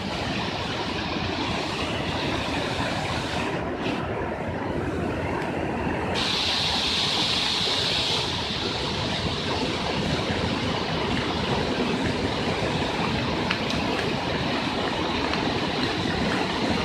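Fast-flowing floodwater rushing through streets: a steady, dense roar that shifts in tone a couple of times, around four and six seconds in.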